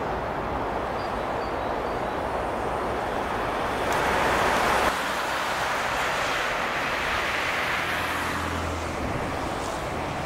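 Steady motorway traffic noise from passing trucks and cars. One vehicle passes louder about four seconds in, and its sound drops off sharply about a second later. A low engine hum follows near the end.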